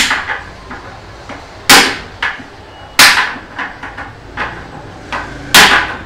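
Pliers used as a hammer striking the end of a metal rod held against a mixer grinder's seized threaded motor coupler. There are four hard, sharp metallic blows about one to two and a half seconds apart, with lighter taps between them. The blows are knocking the jammed coupler round to unscrew it.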